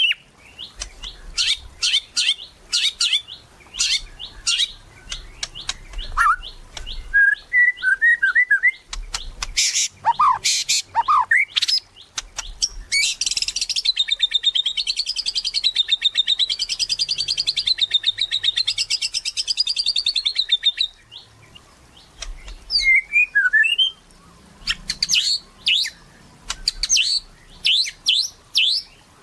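White-rumped shama in full song: a string of sharp high chirps and whistled notes, then a long, rapid warbling trill in the middle that stops abruptly, followed by more chirps.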